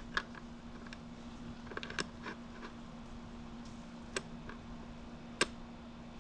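Sparse light clicks and taps of small parts being handled and fitted by hand, over a steady low hum.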